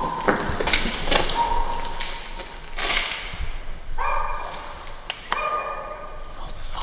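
Dogs barking and howling somewhere outside the tunnel, with two drawn-out howls a few seconds in. Footsteps and knocks on the tunnel floor sound throughout.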